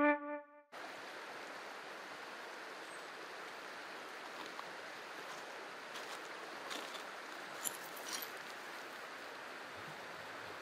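A river flowing steadily past a gravel bank: an even rushing of water. A few faint clicks come about two-thirds of the way through. A flute tune breaks off in the first second.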